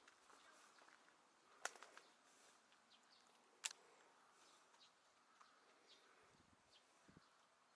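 Near silence: faint outdoor ambience with scattered faint high chirps, broken by two sharp clicks, one about a second and a half in and another two seconds later.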